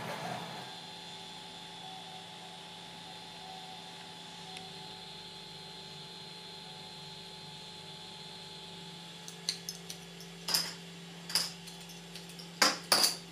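3D printer's fans humming steadily. Near the end come a string of sharp clicks and knocks as hands take hold of the printer's build plate.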